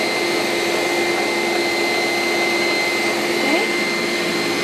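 Bosch Universal Plus mixer's motor running steadily, driving the meat grinder auger with the pasta attachment. It runs empty, with only a little oil in the auger and pasta die. A constant whine sits over a whirring noise.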